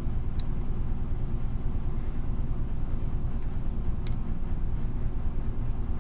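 Steady low background rumble, with two faint, sharp clicks about half a second in and about four seconds in from a lock pick working the pins of a pin tumbler lock.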